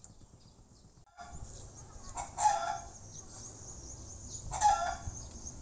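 Chickens calling: two short, loud calls about two seconds apart over a steady background.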